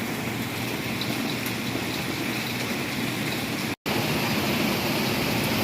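Heavy rain pouring down with strong wind, a steady dense rushing hiss. It cuts out for a split second about two-thirds through, then resumes slightly louder.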